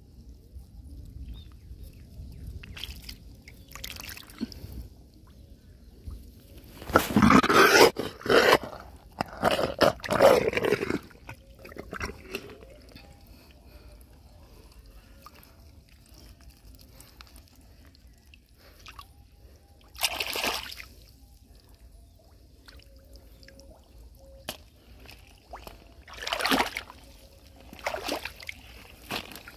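A hand working in a water-filled hole in a mud bank: wet squelching and sloshing of mud and water. It comes in a few loud bursts, the loudest about seven and ten seconds in, with shorter ones near twenty and twenty-six seconds.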